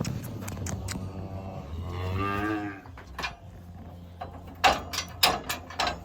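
A cow moos once, about a second long, starting about a second and a half in. In the second half come several sharp knocks and clanks, the loudest sounds here.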